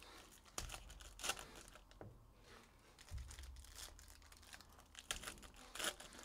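Foil wrapper of a Bowman Draft Jumbo card pack being torn open and crinkled in a series of irregular crackling bursts, the loudest about a second in and near the end, with a few soft thumps of handling on the table.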